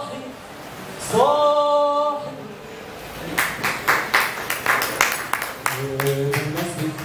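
A singer holds one long sung note. About three seconds in, a short round of hand-clapping breaks out and lasts a couple of seconds. Near the end, a man's lower voice comes in.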